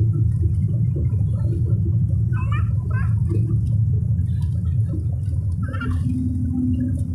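Airliner cabin noise as the aircraft rolls along the runway: a loud, steady low rumble of engines and wheels, with a steady hum that shifts lower near the end.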